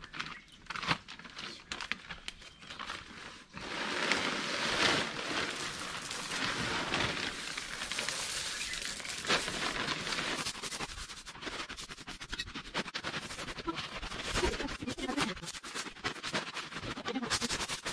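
Small white decorative garden gravel being poured out of plastic bags and spread by hand: a dense rattle and crunch of small stones, with plastic bags crinkling. It thickens about four seconds in.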